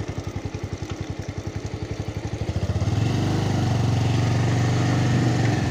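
Motorcycle engine running at low revs with an even, rapid putter. About halfway through it pulls harder and grows louder and steadier.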